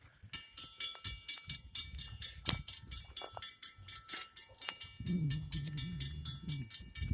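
Railroad grade-crossing bell ringing in rapid, even strikes, about four a second, the same ringing pitches on every stroke; it starts suddenly, the crossing's warning that a train is coming. A low hum comes in briefly about five seconds in.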